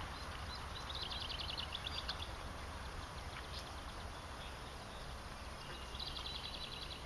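A small animal's high-pitched, rapidly pulsed trill, heard twice for about a second each, about a second in and again near the end, over a low steady outdoor rumble.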